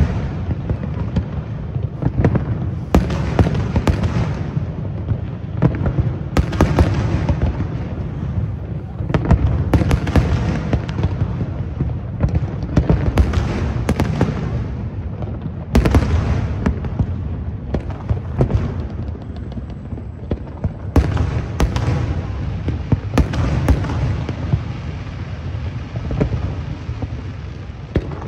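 Aerial fireworks display: shells bursting with sharp bangs every second or two, each followed by a rumbling tail, over a steady low rumble of overlapping bursts.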